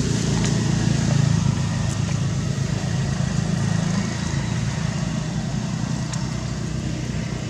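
A nearby engine running steadily with a low hum, with a few faint clicks above it.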